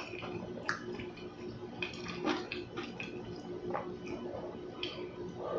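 Close-miked eating sounds of chewy buckwheat crepe: irregular wet smacks and sharp mouth clicks, about half a dozen, over a steady low hum.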